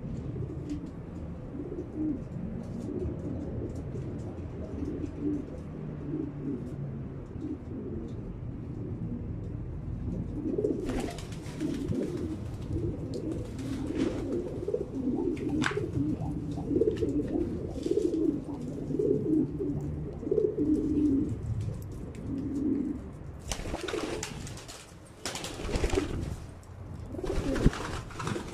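Domestic pigeons cooing, many low burbling coos overlapping without a break. A few brief bursts of noise break in, most of them in the last few seconds.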